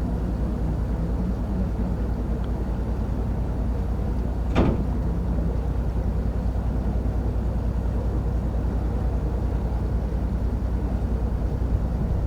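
Lake cruise boat's engine running with a steady low drone. A single brief sharp knock sounds about four and a half seconds in.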